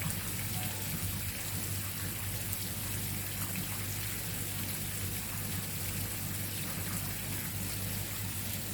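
Steady water noise, like rain or running water, with a low steady hum underneath.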